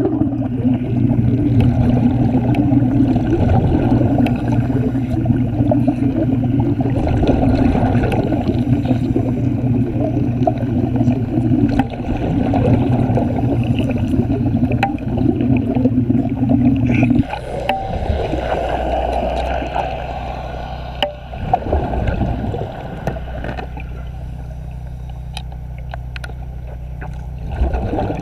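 Underwater manual arc welding: a dense crackling, bubbling noise with a steady low hum, which cuts off abruptly about 17 seconds in. Lower, quieter underwater rumbling and bubbling follow.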